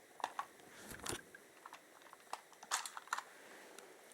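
Plastic parts of a Thunderbird 4 toy clicking and knocking as they are handled and pulled out of the model: scattered light clicks, loudest about a second in and near three seconds in.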